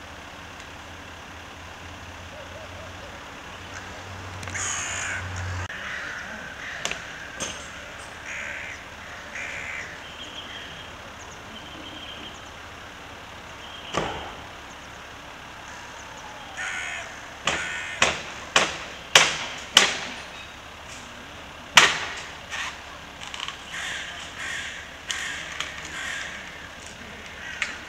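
Hooded crows cawing: scattered harsh calls at first, then a run of loud caws in quick succession, about one every half-second, in the second half.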